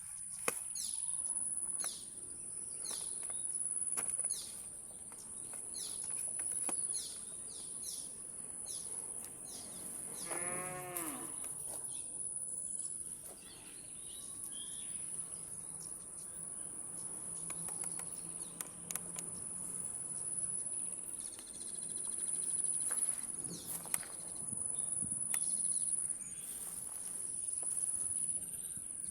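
A cow moos once, about ten seconds in, a single call that rises and falls in pitch. A steady high-pitched insect drone runs underneath, with scattered light clicks.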